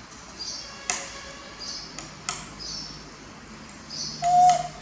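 A metal spoon clinks against a small glass bowl a few times, and the loudest strike, near the end, rings out briefly as a ping. Faint short chirps repeat about once a second behind it.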